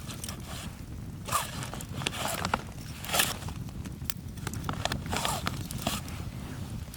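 Wood campfire burning: sharp crackles and pops from the firewood, with short hissing bursts about once a second over a steady low rumble.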